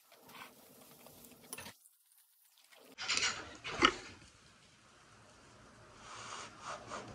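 Quiet mukbang eating sounds: chewing, then metal chopsticks clicking against a plate while picking up kimchi pancake, with a sharp click about four seconds in.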